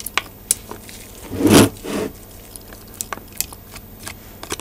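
Steel ball bearings from an antenna rotator's bearing race clicking as they are picked out of old, sticky grease with a metal hook tool and dropped into a plastic tub: a string of sharp separate clicks, with a louder, longer scuffing noise about a second and a half in.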